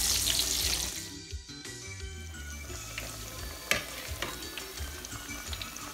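Hot oil sizzling around smashed green plantain slices (tostones) during their second fry in a pot. The sizzle is loudest at first and drops sharply about a second in, with a few light clicks of a metal spatula against the pot.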